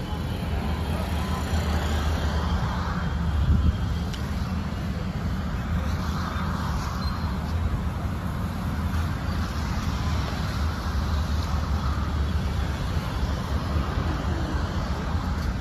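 Steady rumble of road traffic passing over a bridge.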